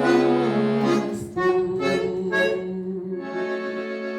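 Accordion playing the closing bars of a song, changing chords and settling on a long held chord about three seconds in.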